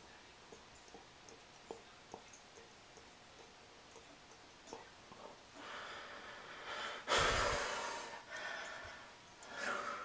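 A person breathing: a drawn-in breath, then a strong exhale of cigarette smoke about seven seconds in that blows onto the phone's microphone and fades over about a second. A second, shorter breath out comes near the end, and faint clicks come before.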